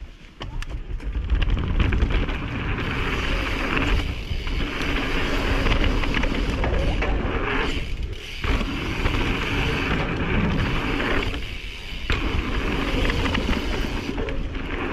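Mountain bike ridden fast down a dirt jump line: steady wind rush on the camera microphone mixed with the tyres rolling over packed dirt and the rattle of the bike. There are three brief lulls where the noise drops away as the wheels leave the ground over the jumps.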